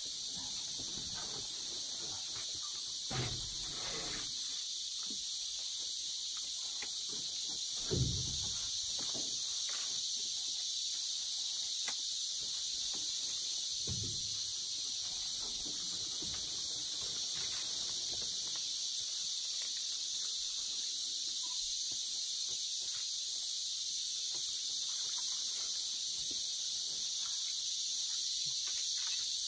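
Amazon rainforest insect chorus: a steady, dense high-pitched drone. A few soft low thumps come in the first half.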